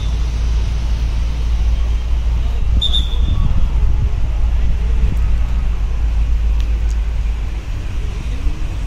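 A steady low rumble throughout, with one brief, high, steady whistle blast about three seconds in, typical of a volleyball referee's whistle.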